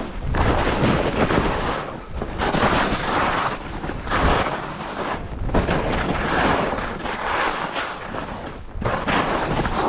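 Skis scraping and chattering over hard, chopped-up snow through a run of turns, the noise swelling with each turn about every second or so, with wind buffeting the microphone.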